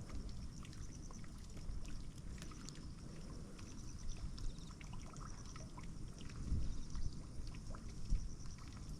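Strong wind buffeting the microphone in low, uneven gusts, with water moving and lapping along a canal bank and small scattered clicks.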